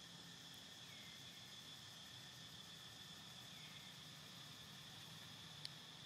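Faint, steady high-pitched chirring of insects, with two brief faint falling chirps and a single sharp click near the end.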